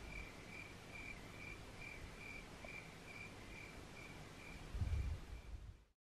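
Cricket chirping steadily, about two even chirps a second, over a low rumble. A louder low rumble comes about five seconds in.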